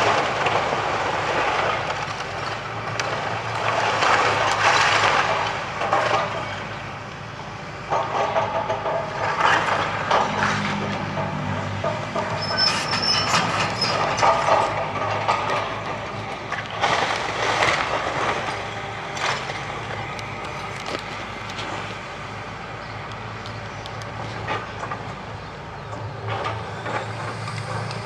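Hitachi demolition excavator's diesel engine running steadily while its sorting grab crunches and drops timber and rubble, with repeated loud crashes and cracks and a brief high squeal about halfway through.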